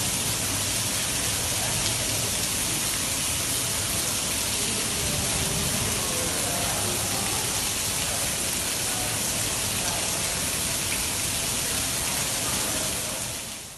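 Heavy storm rain pouring down, a steady dense hiss that fades out at the very end.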